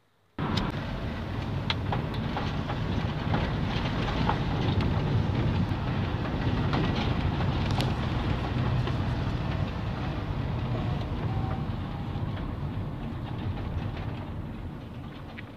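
Car driving along a rough dirt track, heard from inside the cabin: steady road and engine noise with scattered knocks and rattles as it jolts over the ruts. It starts abruptly just after the start and eases off slightly near the end.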